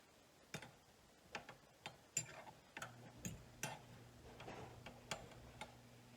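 Faint, irregular light clicks and taps, about a dozen over five seconds, with a faint low steady hum coming in about three seconds in.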